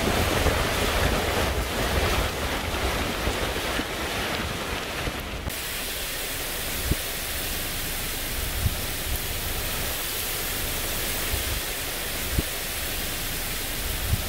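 Hurricane wind and heavy rain rushing steadily, with wind buffeting the microphone. About five seconds in, the sound drops to a duller, slightly quieter rush, with a few sharp ticks later on.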